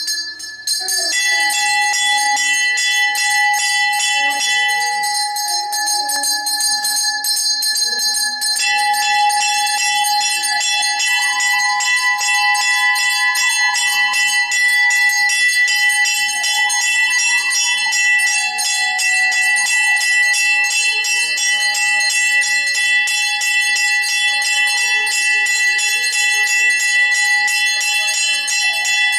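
Brass temple hand bell (ghanta) rung continuously for an aarti lamp offering: rapid clapper strikes over a steady ringing tone.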